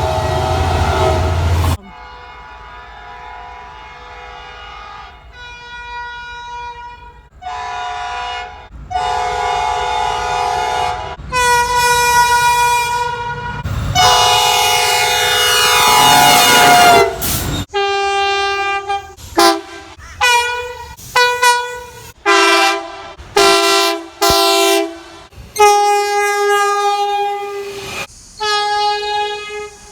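Train air horns sounding chords over and over, in a string of short clips cut one after another. A long blast near the middle comes with the noise of the train passing, its pitch falling as it goes by; after that come many short, sharp horn soundings.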